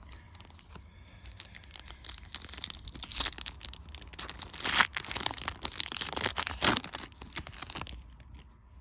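Yu-Gi-Oh! trading-card packaging being torn open and crinkled. The rustling builds about three seconds in and carries two sharp rips, about two seconds apart.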